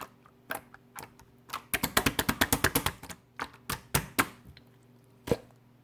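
Green toy slime being pressed and worked by hand, giving sharp clicking pops: a quick run of about ten a second near the middle, then a few scattered pops, the last near the end.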